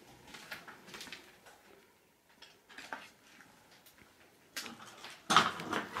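Footsteps crunching over debris and broken glass, with light metallic clinks from loose scrap. About five seconds in comes a louder clatter and scrape.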